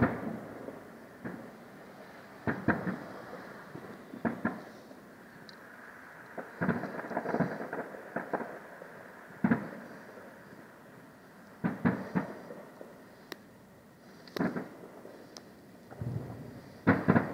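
Distant aerial firework shells bursting: a string of muffled booms with rolling, thunder-like echoes, some single and some in quick clusters of two or three, about every two seconds.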